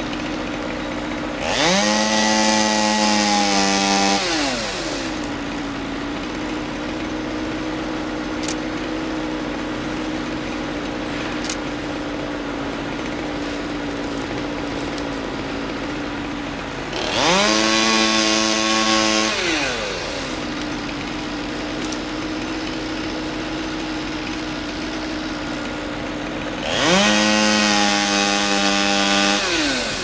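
Two-stroke chainsaw idling, revved up to full speed three times for two to three seconds each: about a second and a half in, a little past halfway, and near the end. Each time the pitch climbs fast, holds and then falls back to idle.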